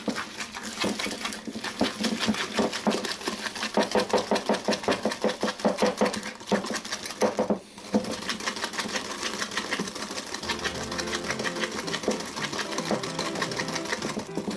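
Wire balloon whisk beating egg yolks and sugar in a ceramic bowl: a fast, even clatter of the wires striking the bowl, with a brief pause a little past halfway. The yolks are being whipped until creamy.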